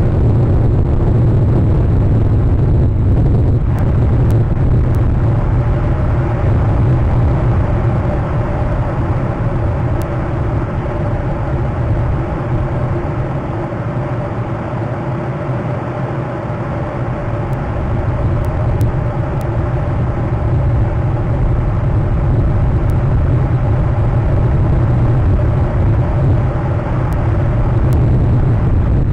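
Steady low rumble with a hiss over it, easing a little about halfway and then building again.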